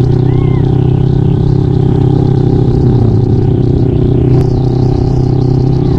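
Yamaha Mio scooter with a swapped-in Kawasaki Ninja two-stroke engine, running at a steady, high-pitched pace while being ridden. There is a single sharp click about four seconds in.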